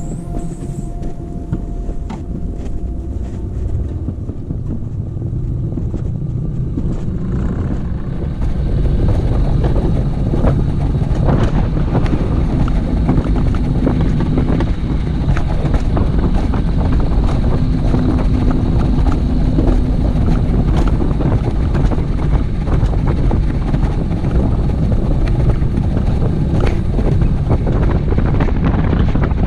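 Alpine coaster sled running down its steel tube rails: a steady rumble of the wheels with rattles and clicks, mixed with wind on the microphone. It gets louder about eight seconds in.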